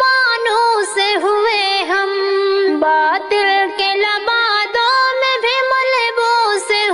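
A high voice singing an Urdu nazm (a religious poem), drawing out its notes over a tone held steadily underneath.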